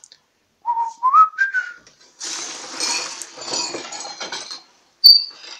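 Whistling: three short notes early on, each gliding up and down in pitch. Then comes a rough, hissing scrape lasting about two seconds, and a brief high-pitched squeak near the end.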